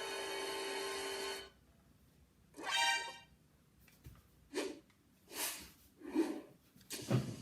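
A held musical note cuts off about a second and a half in. After a short gap comes a brief pitched blast, then four short separate bursts spaced about a second apart.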